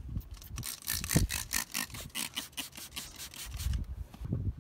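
Trigger spray bottle pumped rapidly, a quick run of short hissing squirts of water-spot remover misting onto a boat's gel-coat hull, with a single low thump about a second in.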